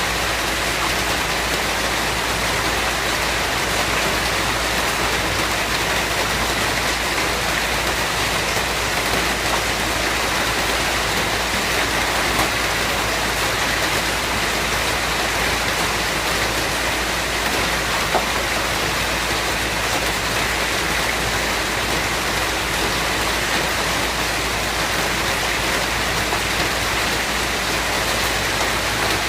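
Steady rain falling and pattering on a surface, an even, constant hiss of many drops with no change in intensity.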